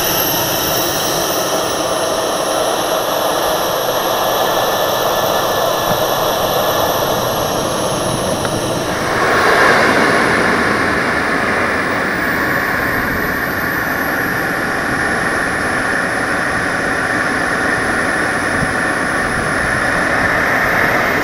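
Small model jet turbines of a giant-scale Vickers VC-10 model (four Wren Super Sport turbines) running on the ground, a steady rush with a high whine that rises and falls, heard close up through an onboard camera. About nine seconds in the sound shifts and gets louder and fuller.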